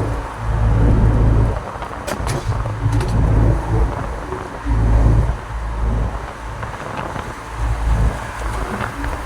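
Truck on the road: a loud, low rumble from the driving truck that swells and eases in surges about every second or so, with a few light clicks.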